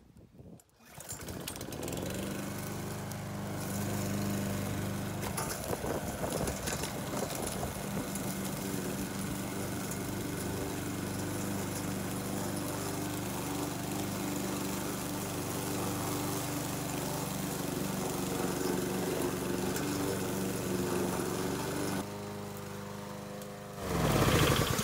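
Gas push lawn mower engine starting about a second in and running steadily while cutting grass. It is kept running by the repaired safety bail bar held down against the handle. About two seconds before the end the engine sound drops and changes, then there is a brief louder noise.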